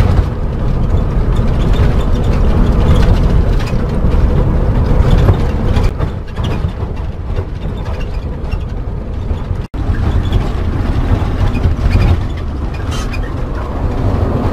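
Cabin noise of a motorhome driving on the highway: a steady low engine and road rumble with small rattles and clicks from inside the cab. The sound drops out for an instant about ten seconds in.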